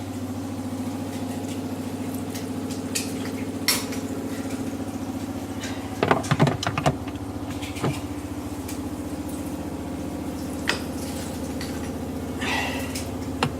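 Scattered clinks and knocks of hands working in the sump of a dishwasher, emptying out the standing water left in the bottom because the machine isn't draining, over a steady low hum.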